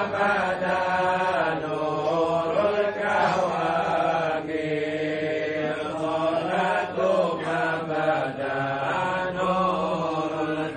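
Men's voices chanting Arabic devotional verses in long, drawn-out melodic lines.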